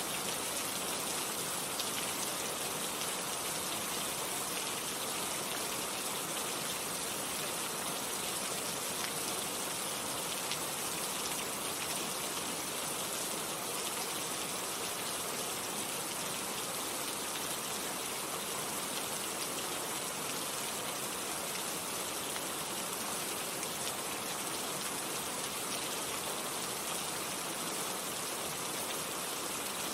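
Steady, even rain falling, with a dense hiss and faint scattered drop ticks.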